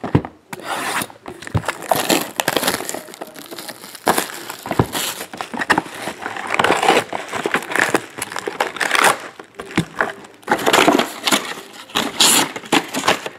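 A cardboard hobby box of trading cards being opened by hand, and its foil-wrapped card packs crinkling and rustling as they are pulled out and stacked.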